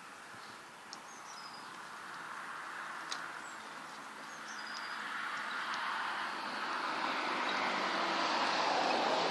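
A passing vehicle whose noise swells steadily over the last few seconds to its loudest near the end. Short high bird chirps come in the first half.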